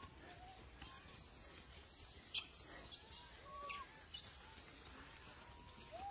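Macaques feeding in a group, giving several short, faint arched squeaking calls. A few sharp clicks and rustles run under the calls, the loudest click about two seconds in.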